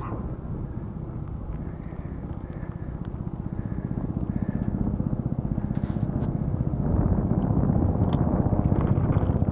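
Helicopter's rotor chop in the distance, a fast, even pulsing that grows steadily louder as it approaches.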